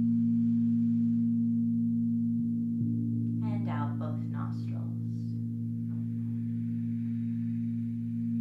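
Crystal singing bowls played with a mallet, several tones ringing together in a steady, sustained low drone; a slightly higher tone joins about two and a half seconds in.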